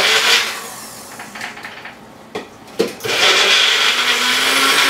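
Magic Bullet blender pulsing hard-boiled eggs: a loud run that stops about half a second in, two short clicks, then a second longer run from about three seconds in.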